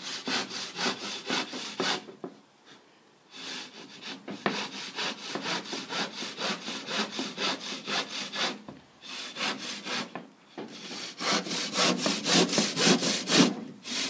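Handsaw cutting through a sheet of plasterboard in quick back-and-forth strokes, about three a second, with a few short pauses between runs of strokes.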